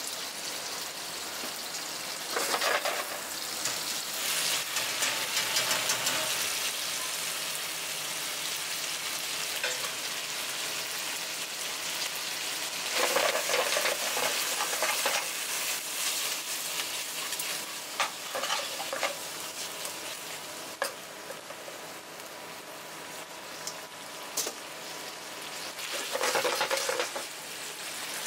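Spaghetti sizzling in a hot frying pan as it is tossed and stirred with vegetables and oil, a steady hiss that swells into louder bursts of sizzling several times.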